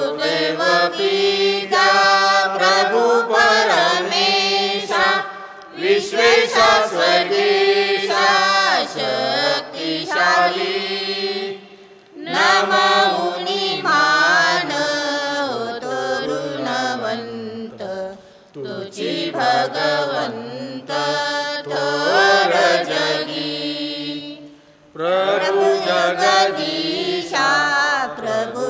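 A man's voice singing a Marathi chant of the Catholic Mass in slow, held phrases, with short breaks for breath every six seconds or so.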